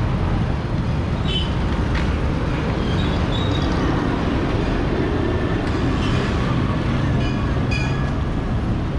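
Motorcycle riding along a town street: steady engine and road noise with wind buffeting the microphone, and a few short high-pitched tones breaking through now and then.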